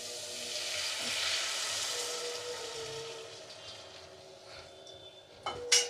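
Milk poured into a hot steel kadai of ghee-fried grated bottle gourd and sugar, sizzling: a hiss that swells over the first second or two, then slowly dies away. Near the end there is a sharp metallic clank.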